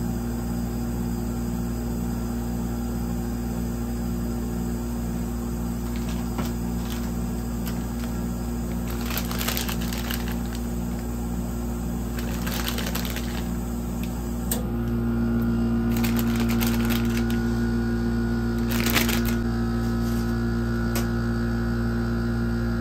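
Steady low electrical hum of the ice cream cold plate's refrigeration, with a faint pulsing for the first fourteen seconds; the hum shifts about fifteen seconds in. Over it, a plastic bag of marshmallows crinkles briefly four times.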